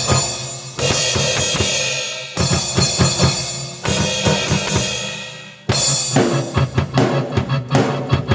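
Drum kit and keyboard played together: crash cymbal accents about every second and a half over kick and snare, with sustained keyboard chords underneath, turning to a busier run of quick drum hits near the end.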